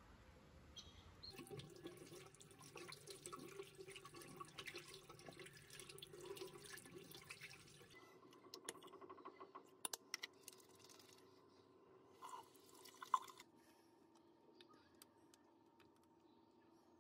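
Faint water running from a bathroom washbasin tap into the sink. It stops about eight seconds in, and a few sharp small clicks and taps of handling at the basin follow.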